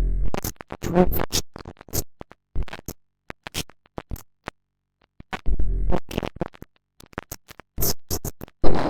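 Electronic music made of scratchy, stuttering clicks and short blips, with deep bass hits at the start and again about five and a half seconds in.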